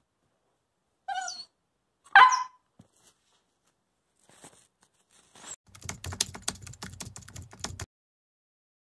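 Wolfdog puppy speaking for food: a short high yip about a second in, then a louder, sharper bark-yelp a second later. Late on comes a quick clatter of clicks over a low hum for about two seconds.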